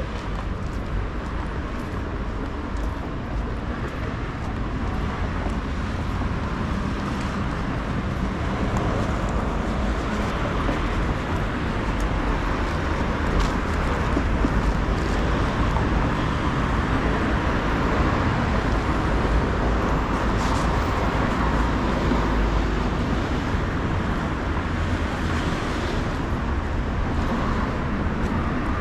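Street traffic: cars driving past on a city avenue, a steady wash of engine and tyre noise that swells louder through the middle.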